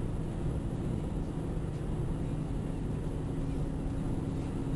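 Steady engine and tyre noise inside a car cruising on the autobahn, with a low steady hum; a second, slightly higher hum comes in about two seconds in.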